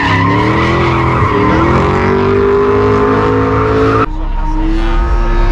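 A drift car's engine revving hard, its note climbing, while its tyres screech in a sideways slide. About four seconds in, the tyre screech cuts off abruptly and the engine note carries on.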